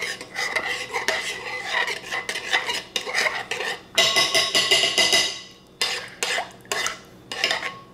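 A utensil stirring thick miso marinade in a bowl, clinking and scraping against the side over and over, with a denser stretch of scraping about four seconds in. The miso is being worked because it is still clumpy.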